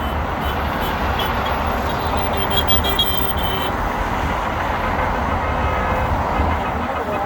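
Steady roar of heavy highway traffic, trucks and cars passing below, with a faint vehicle horn sounding for about a second near the middle.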